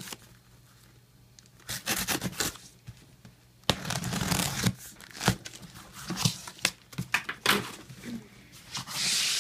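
Packing tape being torn off a sealed cardboard box and the box being opened: irregular tearing and rustling with a few sharp clicks. It starts after about a second and a half of quiet, with the longest tear about four seconds in and another near the end.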